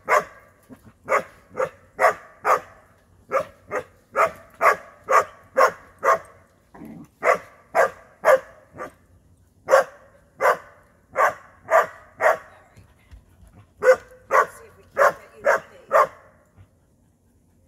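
A dog barking over and over in quick runs of two to five sharp barks, about two a second, with short breaks between runs; the barking stops shortly before the end.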